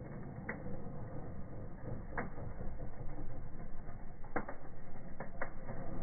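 Fireplace firework burning in a wood fire: a steady crackling fizz of sparks with five sharp cracks, one about half a second in, one about two seconds in, and three close together near the end.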